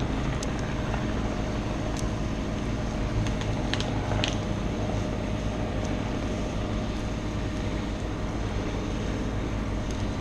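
Steady drone of an engine running throughout, with a few light clicks.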